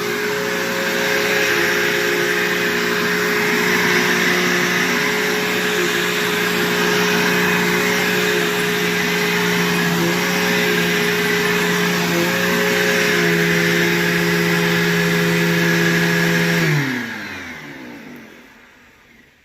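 Bissell PowerForce upright vacuum cleaner running steadily with a motor hum and airflow hiss, then switched off near the end, its motor winding down in pitch and fading out.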